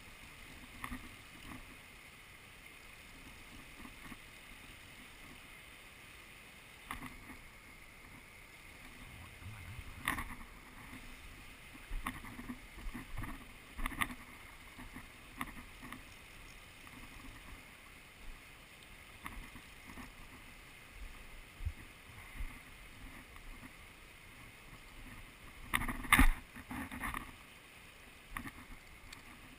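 River water flowing and lapping against the bank, with scattered close knocks and splashes from handling at the water's edge; the loudest cluster comes about 26 seconds in.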